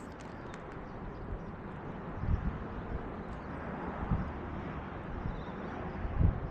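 Steady outdoor background noise with three dull, low thumps about two seconds apart.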